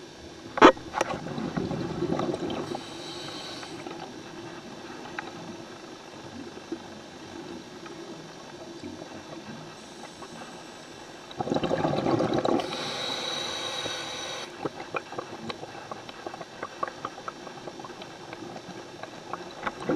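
Scuba diver breathing underwater through a regulator: two breaths, each a gurgling rush of exhaled bubbles followed by a hiss, one a second or two in and the other about twelve seconds in, with fainter water noise and small ticks between. A sharp click sounds just before the first breath.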